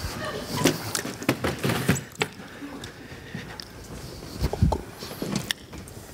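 Irregular knocks, clicks and low thumps of props and clothing being handled and dropped on a theatre stage, with a few voice sounds mixed in.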